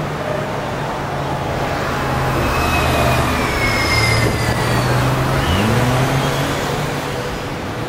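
Road traffic with double-decker buses passing; the engine drone swells as a bus goes by close about halfway through. High whines fall in pitch as it passes, and an engine note rises soon after.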